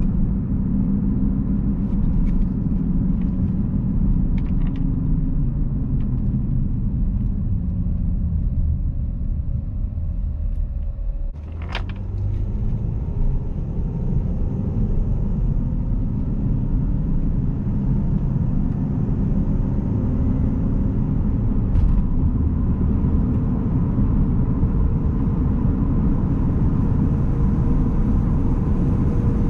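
2011 Jeep Grand Cherokee V6 4x4 driving: a steady low rumble of engine and road noise. About eleven seconds in, the level dips briefly and there is a sharp click.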